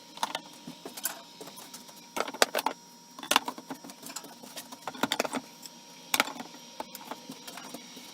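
Clinking and clattering of hard objects being handled, in several short bursts.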